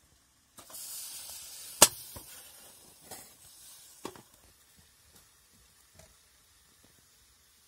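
Steam hissing from a samovar, fading over a few seconds, with one sharp clink about two seconds in and a few lighter knocks after.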